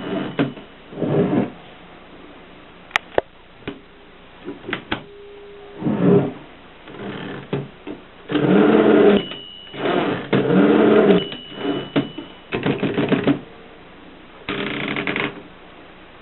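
Mercedes 6 typewriter working: sharp single clicks of the mechanism, mixed with several longer mechanical bursts about a second long.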